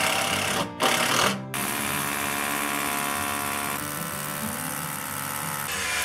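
Hammer drill boring into the concrete floor through a timber sill: two short bursts, then a steady run of about four seconds from about a second and a half in.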